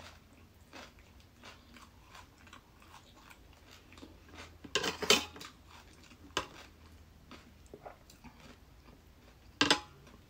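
A metal spoon clinking and scraping on a plate as it scoops up cucumber salad, with soft close-up chewing between. The loudest scrapes come a little before halfway and again just before the end.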